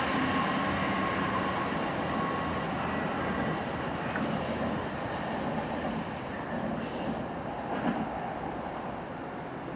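TransPennine Express Class 802 train pulling away and fading, with thin, high wheel squeals as it takes the curve about halfway through.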